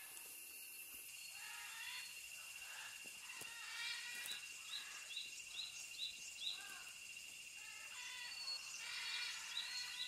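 Tropical forest ambience: several birds calling now and then over a steady high insect drone. From about four seconds in, a short rising chirp repeats about three times a second.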